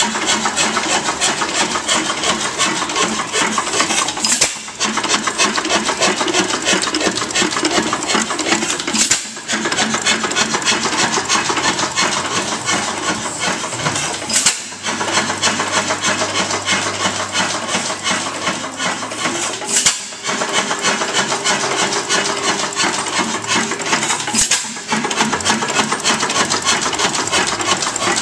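Barn-fresh 5 HP Galloway round-rod hit-and-miss engine running, a fast, steady mechanical clatter of its turning gear and flywheels. A louder sharp beat comes about every five seconds.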